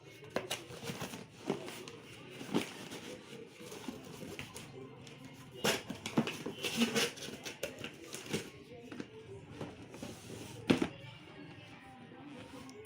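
Background music under irregular clicks and knocks of objects being handled, several sharp ones scattered through, the loudest near the end.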